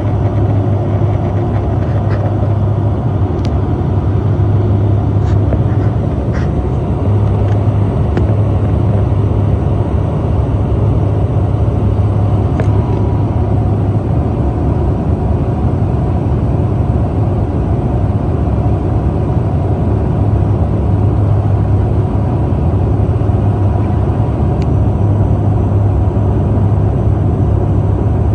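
Turboprop airliner cabin noise: the propellers and engines make a steady, loud drone with a deep hum and a faint steady whine above it.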